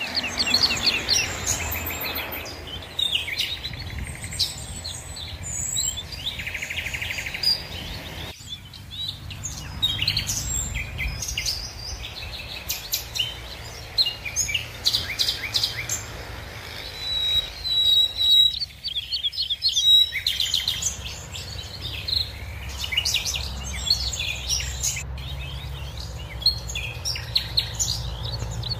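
Several small birds chirping and singing in quick, overlapping calls, over a low steady rumble.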